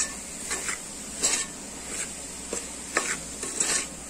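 A white plastic spatula stirring and scraping a chicken, onion and capsicum masala in an aluminium pot, in repeated strokes about three every two seconds, while the mixture sizzles as it fries.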